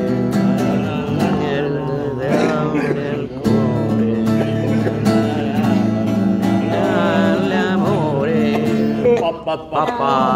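Acoustic guitar strummed as accompaniment while a man sings with a wavering voice; the singing pauses briefly near the end.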